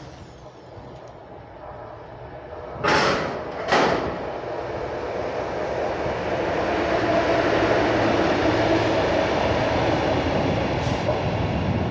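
6Dh-1 diesel shunting locomotive hauling a work train, its engine and rolling noise building as it comes past and staying loud and steady from about seven seconds in. Two short loud bumps sound about three and four seconds in.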